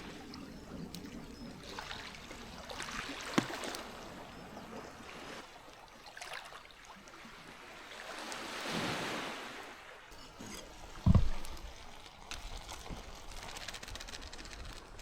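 Small waves washing in slow swells. There is a sharp click about three seconds in, and a short, heavy low thump about eleven seconds in, the loudest sound.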